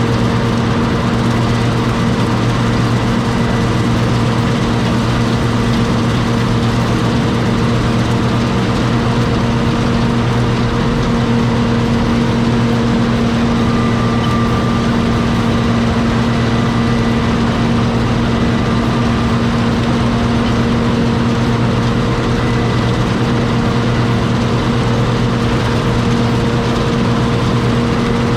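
John Deere 6620 combine's six-cylinder diesel engine running steadily at an even, unchanging speed, a constant hum with no revving.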